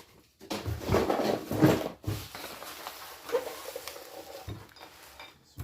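Hands rummaging through a box of small odds and ends, with rustling and clattering that is loudest in the first two seconds, then quieter handling.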